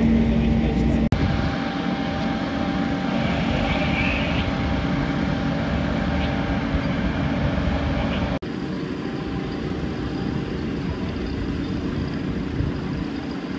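Fire engines' diesel engines running steadily, a continuous engine hum with a strong low tone in the first second. The sound breaks off abruptly twice, about one second and about eight seconds in, and picks up again each time.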